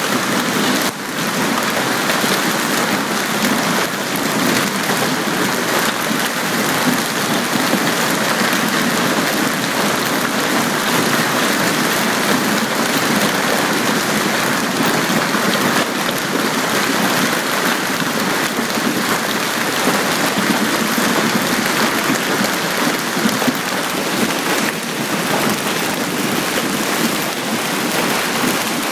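Hailstorm: hailstones and heavy rain pelting paved ground and parked vehicles in a dense, steady clatter.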